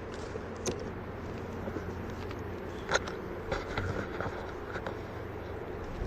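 Inmotion V10F electric unicycle rolling along a path: a steady rumble of tyre on ground, with scattered ticks and small knocks, the sharpest about three seconds in.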